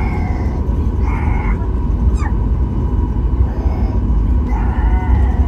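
Steady, loud low rumble, with a few short high-pitched calls about a second in and near the end, and a quick falling squeak around two seconds in.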